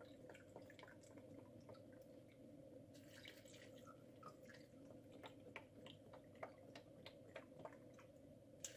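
Faint sound of bone broth poured from a carton into a measuring cup, with scattered small drips and ticks from about three seconds in, over a steady low hum.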